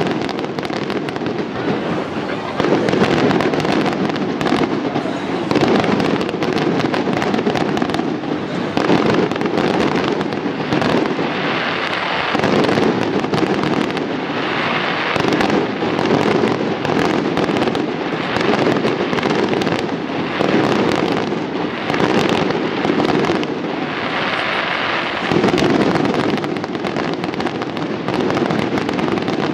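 Fireworks display: a dense, continuous barrage of shells bursting with bangs and crackling, swelling louder every few seconds without a pause.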